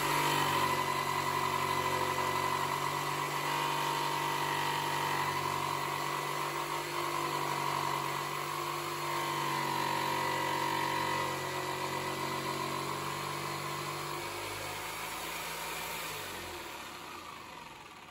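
Makita 4329 orbital-action jigsaw running steadily, its blade cutting through a solid wood worktop. The sound fades away over the last few seconds.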